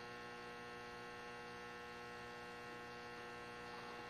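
Steady electrical mains hum with a stack of even overtones, low in level and unchanging; the gentle pinching of the soft clay makes no sound that stands out above it.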